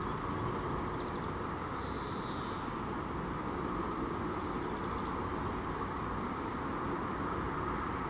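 Steady outdoor background rumble, with two faint, short high chirps about two and three and a half seconds in.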